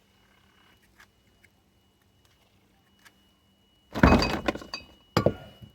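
A few faint ticks, then about four seconds in a loud noisy burst of knocking and clatter, followed by a single sharp knock.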